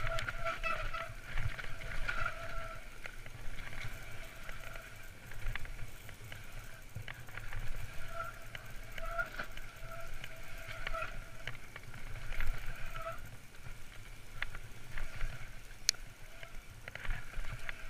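Trek Fuel EX 8 full-suspension mountain bike ridden fast down a dirt singletrack: a steady low rumble from the tyres and wind, scattered rattles and clicks from the bike, and a buzzing tone that keeps cutting in and out.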